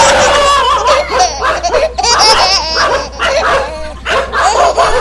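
A dog barking and yipping, mixed with laughter.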